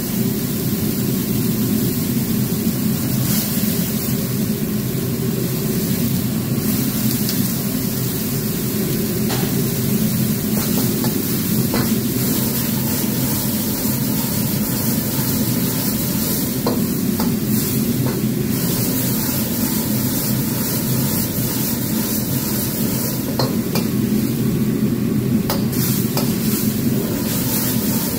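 Commercial wok burner running at full flame with a steady low roar, under the sizzle and bubbling of mapo tofu sauce reducing with silken tofu in the wok. A few light clicks of a metal ladle against the wok.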